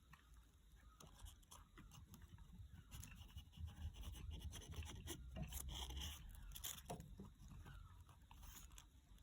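Near silence with faint scattered clicks and scrapes of handling, a little busier in the middle.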